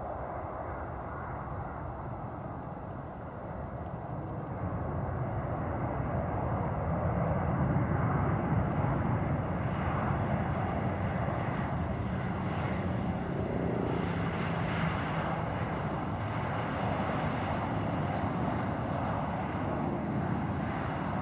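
Boeing 737-800 airliner landing, its CFM56 jet engines running through touchdown and the rollout along the runway. The engine noise swells a few seconds in and stays loud.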